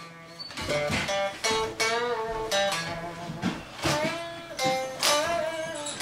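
Background music led by plucked guitar, with a new note struck about every half second.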